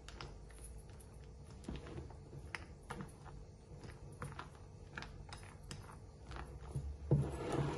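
Silicone spatula folding chocolate chips into thick whipped cream in a glass bowl: light, irregular clicks and taps, a few a second. A louder handling noise comes about seven seconds in.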